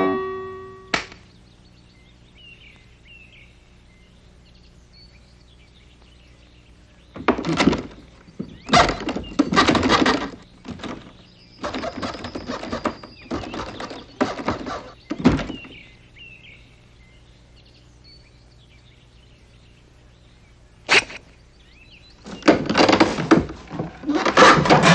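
Faint bird chirps, then a run of irregular knocks, scrapes and thuds, a single sharp thunk, and more clattering near the end.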